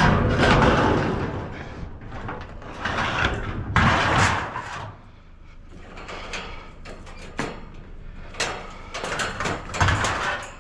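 Scrap sheet metal being dragged and thrown onto a trailer: loud scraping crashes at the start and again a few seconds in, then a quick run of sharp clanks near the end.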